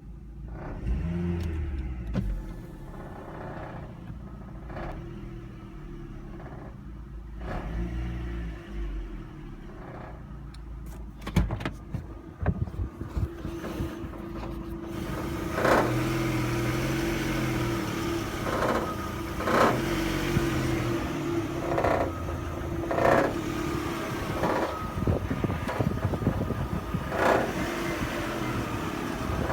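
Vauxhall Astra H 1.8 SRI's four-cylinder engine running with an intermittent rattle, which the owner cannot trace even after the gearbox, front exhaust and back box were replaced. Quieter for the first half, then louder, with short sharp rattles every second or few.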